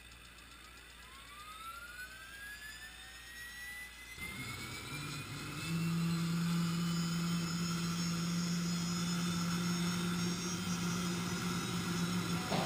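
Hughes 500D helicopter's Allison 250 turboshaft starting up. A whine rises steadily in pitch, a louder rushing noise comes in about four seconds in, and from about six seconds a steady low drone holds as the rotor begins to turn.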